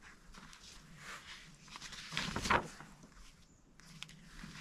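Pages of a paper logbook being turned and handled: soft rustles, the loudest about two and a half seconds in.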